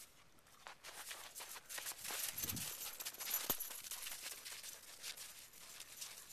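Rapid crunching steps on snow with rustling, building up about a second in and loudest in the middle.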